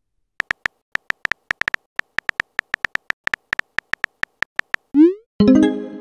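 Texting-app keyboard tap sounds: a quick, irregular run of short pitched ticks, one for each letter typed. About five seconds in comes a short rising swoop and a chime as the message posts to the chat.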